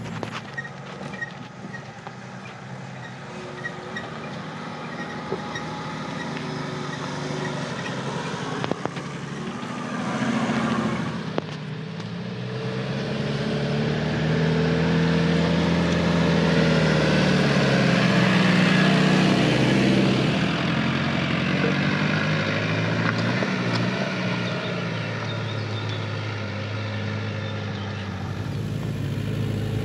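Off-road 4x4's engine pulling hard under load, its pitch rising and falling with the throttle. It builds to its loudest about two-thirds of the way through, then drops back toward a steadier run.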